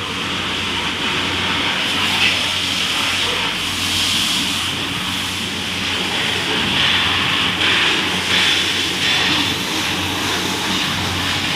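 A pressure-washer jet spraying water against a car's wheel and lower body, giving a steady hiss that swells and eases slightly as the spray moves. A steady low hum runs underneath.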